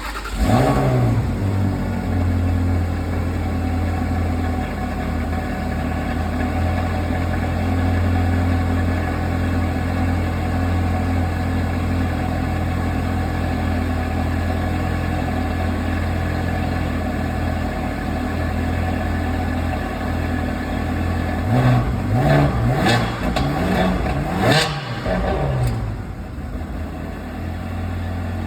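Ferrari 360 Spider's V8 engine idling steadily, with a quick rev right at the start and a run of throttle blips about three-quarters of the way through, each rising and falling in pitch, before settling back to idle.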